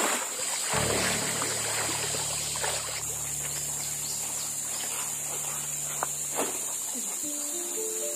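Riverside forest ambience, a steady high insect buzz with scattered splashing water, under background music: a low held chord, then melody notes near the end.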